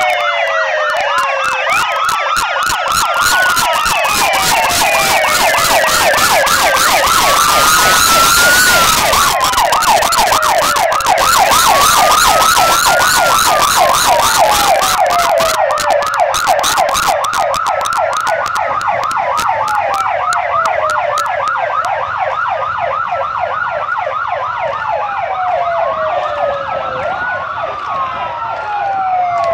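Several police motorcycle sirens sounding at once, slow rising-and-falling wails overlapping a fast repeating yelp. A rushing noise swells about eight seconds in.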